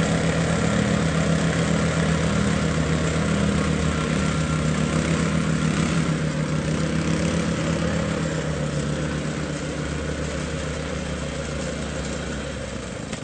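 Vibratory plate compactor running: a steady, even engine drone with the machine's vibration, easing gradually softer over the second half.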